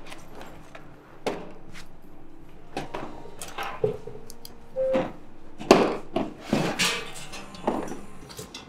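Two people packing up their things: a bag and jacket rustling, and objects and a plastic tub knocking and clattering as they are picked up and set down, in a string of separate sounds with the loudest rustle about six seconds in.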